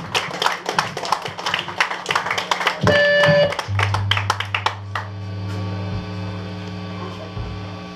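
Scattered clapping for the first few seconds, then a short sustained electric guitar note. After it a steady low drone comes from the stage amplifiers for about four seconds and cuts off near the end.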